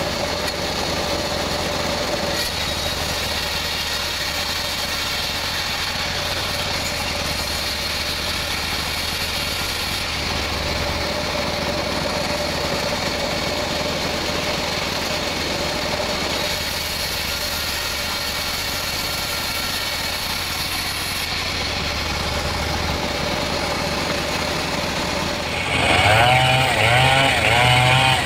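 Sawmill band saw and its drive running steadily, a constant hum with a steady whine. About 26 seconds in it gives way abruptly to a louder chainsaw running, its pitch wavering up and down as it is revved.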